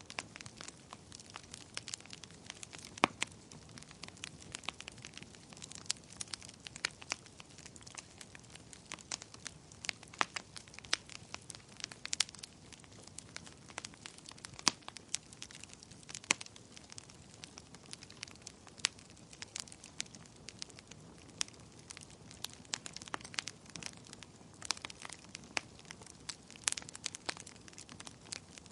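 Fire in a fireplace crackling: irregular sharp pops and snaps, a few much louder than the rest, over a faint steady hiss.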